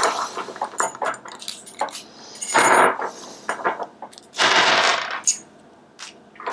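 A small plastic bag of metal hardware being handled and opened: plastic crinkling in a few bursts, with small metal parts clicking and clinking against each other.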